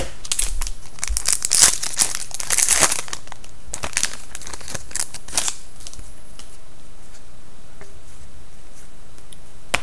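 Hockey card pack wrapper being torn open and crinkled in the hands: a dense run of crackling for about the first three seconds, then a few scattered crinkles that die away about halfway through.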